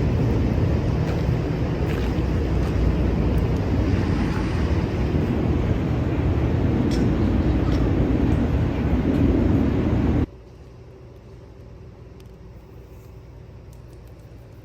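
Loud, steady rumbling noise that cuts off suddenly about ten seconds in, leaving a much quieter steady hiss with a few faint ticks.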